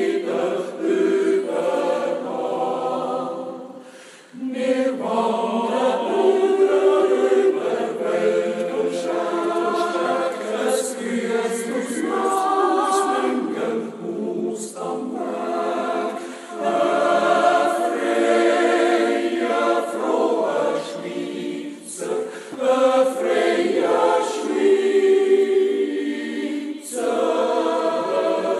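Swiss yodel club choir singing a Jodellied a cappella in sustained, harmonised phrases, with a short breath pause about four seconds in.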